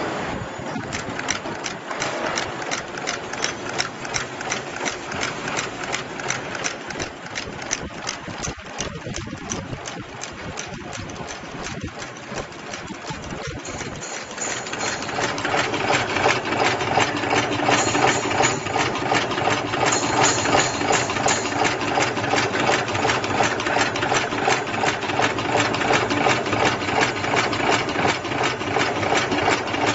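Wheat (foxtail) chain making machine running, its mechanism clattering in a fast, even rhythm of several strokes a second as it forms wire into chain. It gets louder about halfway through.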